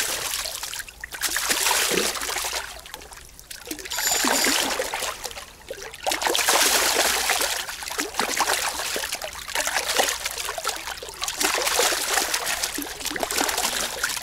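A common carp on a fishing line thrashing and splashing in shallow water against the rocks of the bank. The splashing comes in a few short bursts at first, then goes on almost without a break for the second half.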